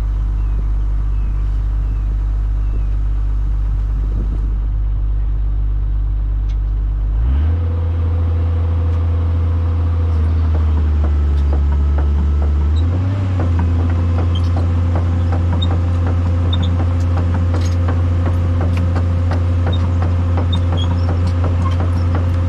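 Kobelco SK250 LC excavator's diesel engine running at a low idle, then throttling up about seven seconds in and rising again partway through, with a steady whine from the machine. Light clicks sound through the second half.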